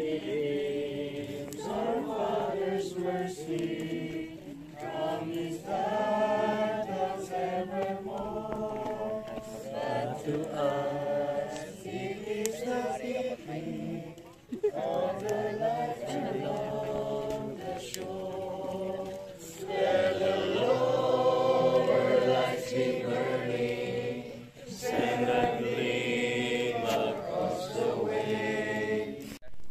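A group of voices singing together in chorus, holding long notes, with a few short breaks between phrases.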